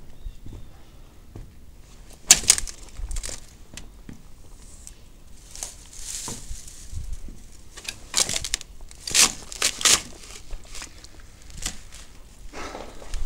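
Irregular crunching and crackling rustles of dry debris being disturbed as someone moves through it. The loudest come a little over two seconds in and again around nine to ten seconds in.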